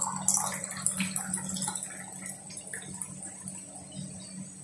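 Water poured from a glass into an aluminium pressure cooker pot holding meat and whole spices, splashing irregularly, over a steady low hum.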